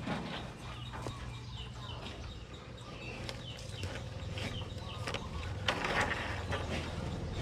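Chickens clucking and birds chirping in short calls throughout, with a brief rustle about six seconds in.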